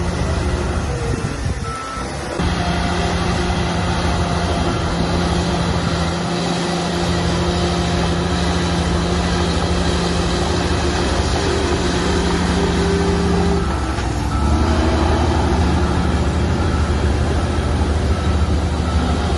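Heavy diesel earthmoving machinery running steadily under load: a bulldozer and dump trucks. The engine note shifts about two seconds in and again near fourteen seconds. A reversing alarm beeps now and then over it.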